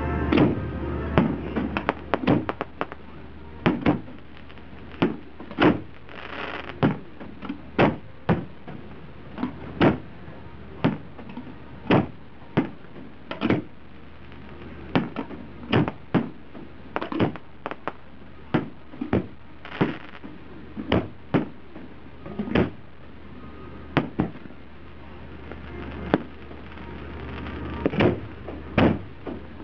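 Aerial fireworks shells bursting in a rapid, irregular series of sharp bangs, one or two a second, each with a short echoing tail.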